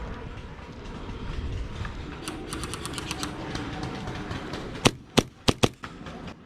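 Airsoft guns firing: a rapid string of shots about two seconds in, then four loud, sharp single shots close together about five seconds in, over a low rumble of movement.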